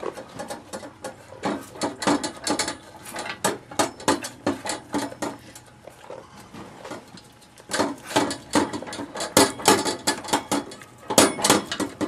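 A goat being milked: short clicking, clattering strokes come in quick runs of several a second. They ease off for a moment around six seconds in, then pick up again.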